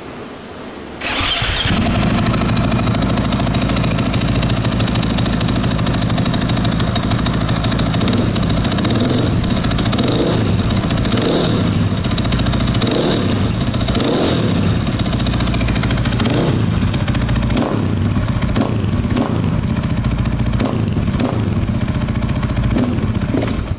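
KTM 500 EXC-F single-cylinder four-stroke enduro engine starting about a second in and running on a newly fitted straight-through FMF aftermarket exhaust, idling at first, then given a run of short throttle blips from about eight seconds in.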